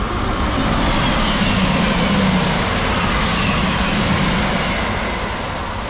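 A train running through the station past the platform: a loud, steady rush of wheel and air noise that starts suddenly, with a faint falling whine.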